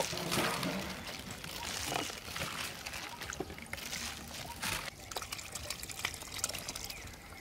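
Wet, dressed food being scooped by a gloved hand into a plastic jar, with its liquid dribbling in alongside. There are irregular small wet clicks and splats, busiest for the first five seconds and quieter after.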